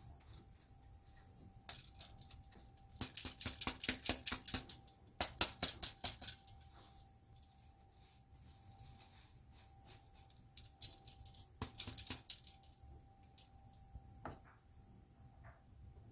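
Small dried anchovies rubbed and tossed by hand in a stainless steel mesh strainer: a dry, crisp crackling rustle of the little fish against the mesh and each other, coming in a few busy bursts with quieter stretches between. The rubbing shakes the fine dust and debris from the anchovies through the mesh.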